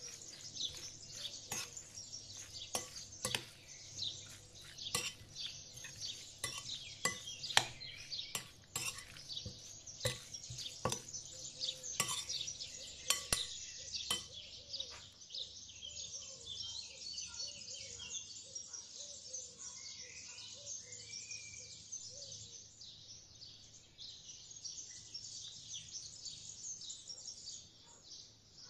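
Metal spoon stirring grated beetroot salad in a glass bowl: irregular sharp clinks of the spoon against the glass, frequent over roughly the first half, then only now and then.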